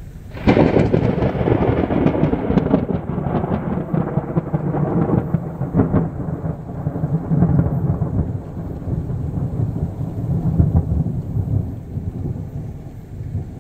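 Thunder from a supercell: a sudden loud crack about half a second in, crackling for the next few seconds, then a long low rumble that carries on for about ten seconds.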